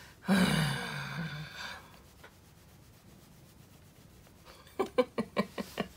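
A long-haired cat being handled on a wooden tabletop: a short wordless vocal sound sliding down in pitch at the start, then faint rubbing of fur, and near the end a quick run of sharp scratchy taps lasting about a second.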